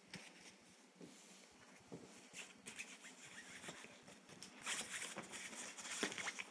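Faint rustling and scratching as a hand and a cat move against a fabric cat house, with scattered small scuffs and clicks. It grows louder for the last two seconds or so.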